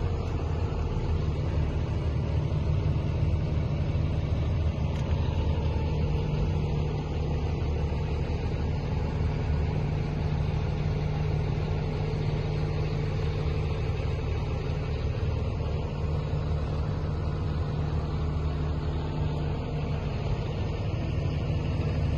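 An engine running steadily, a low unchanging hum.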